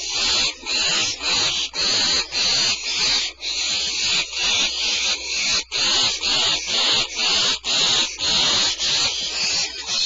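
Barn owl owlets hissing over and over, harsh breathy hisses about two a second. This is the snoring hiss that barn owl young use to beg for food.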